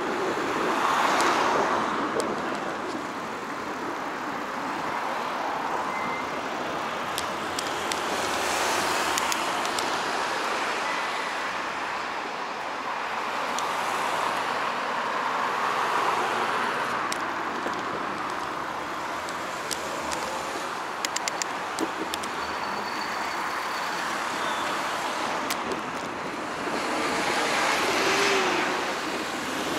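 Road traffic: several cars pass one after another, each a swelling and fading whoosh of tyres and engine over a steady traffic hum. A quick run of faint clicks comes about two-thirds of the way through.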